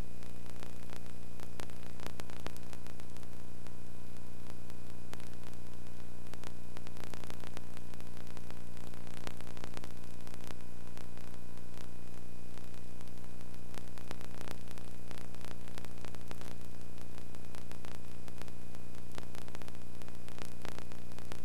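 Steady electrical hum with many overtones under a constant hiss, broken by scattered crackling clicks. No game sounds can be heard.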